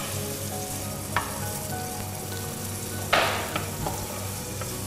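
Sliced bell pepper frying in hot oil in a pan, sizzling steadily while a wooden spatula stirs it. There is a light knock about a second in and a brief louder burst about three seconds in.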